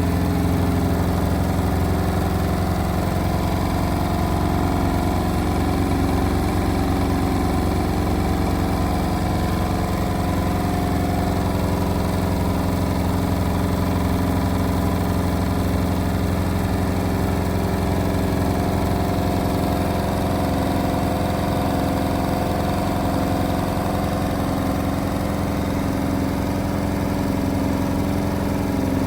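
Indesit WIL143 washing machine on its final high-speed spin at 1400 rpm, a steady mechanical drone with a low hum that wavers at a regular rate. This is the strange noise it makes on this spin.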